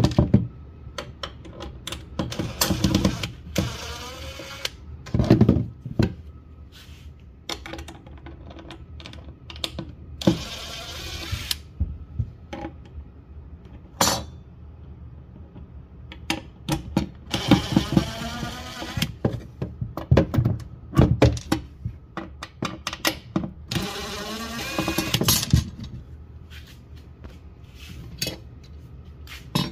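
Handling hard objects: scattered knocks, taps and clatter, with several squeaky scraping slides lasting a second or two each.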